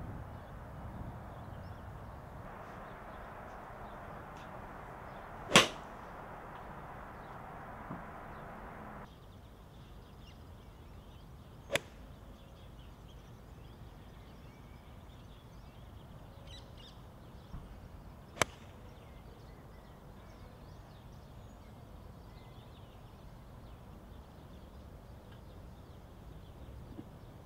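Golf irons striking balls on full shots: three sharp clicks several seconds apart, the first and loudest about five seconds in, over steady outdoor background hiss with faint birdsong.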